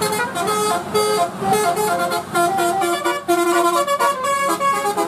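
Indonesian bus basuri 'telolet' horn playing a quick tune of stepped notes, several horn tones sounding together and changing pitch every fraction of a second, with a brief break a little after three seconds in.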